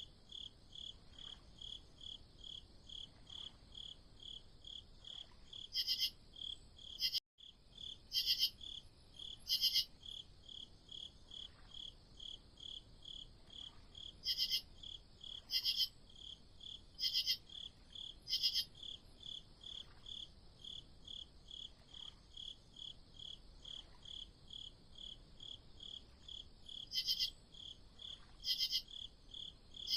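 Crickets chirping in a steady rhythm, about two to three chirps a second, with a louder, higher-pitched cricket chirping in short runs now and then. The sound breaks off for an instant about seven seconds in.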